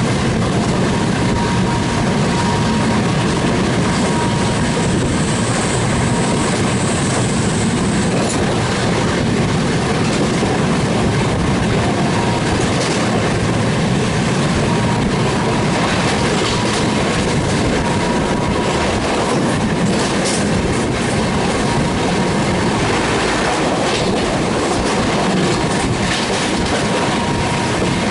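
Express train running at speed on the track: a steady rumble with the clatter of wheels over rail joints.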